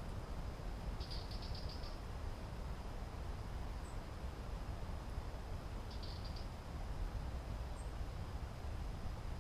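Outdoor nature ambience: a steady low rush, with two short high rapid trills, one about a second in and one about six seconds in. A few faint very high chirps also sound.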